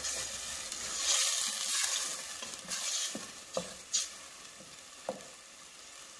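Wooden spoon stirring and scraping an onion-tomato masala frying in oil in a stainless steel pot, over a sizzling hiss. There are a few sharp taps in the middle, and the sizzle settles quieter near the end.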